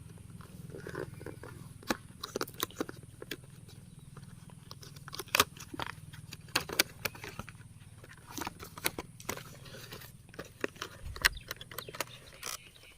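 A small cardboard product box being opened and its contents handled: scattered clicks, taps and crinkly rustles over a faint steady low hum.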